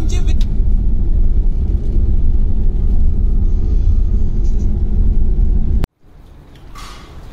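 Steady low road rumble and wind from a moving vehicle, heard from beside an open side window. It cuts off abruptly about six seconds in, and a much quieter outdoor background follows.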